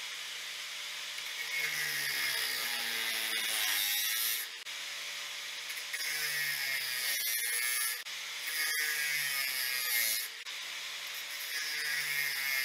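Electric angle grinder with an abrasive cut-off disc cutting a metal strip clamped in a vise. The motor whines steadily, and four times the cut grows louder and harsher as the disc bites, its pitch sagging under load, then easing off briefly between passes.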